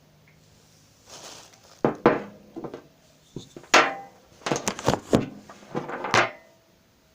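Handling noise: a string of knocks, clatters and scrapes from objects being picked up and moved, starting about a second in and ending shortly before the end.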